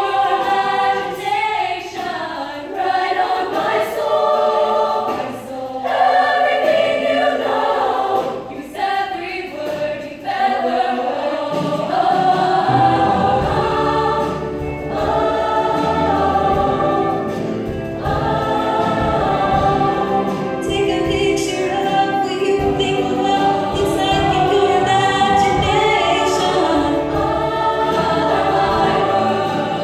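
Women's show choir singing in full voice. About twelve seconds in, a deep low backing comes in beneath the voices.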